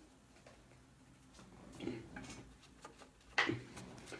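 Faint clicks and handling noise from football trading cards being flipped through by hand, with a sharper click a little after three seconds in.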